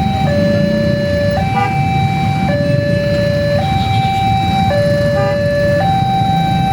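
Railway level-crossing warning siren sounding a two-tone high–low alarm, switching pitch about once a second, over a steady low rumble.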